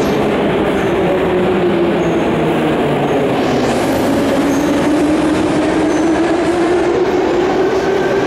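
Metro train noise filling the station: a rumble with a steady motor whine whose pitch slowly falls, bottoms out about halfway through, then rises again.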